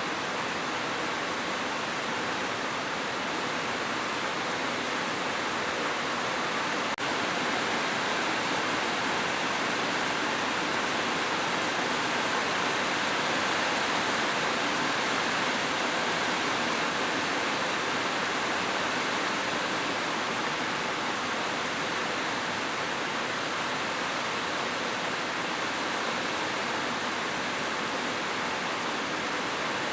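Steady rain: an even, unbroken hiss that does not change.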